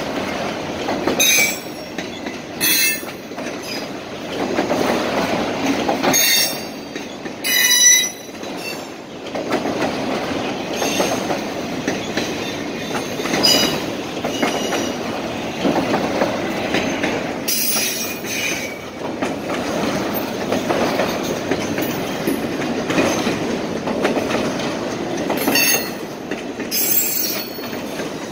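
Freight train of autorack cars rolling steadily past, the wheels rumbling and clattering on the rails, with several short high-pitched wheel squeals breaking in at irregular intervals.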